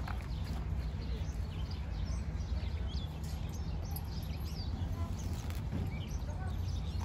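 Outdoor ambience: small birds chirping in short, scattered calls over a steady low rumble.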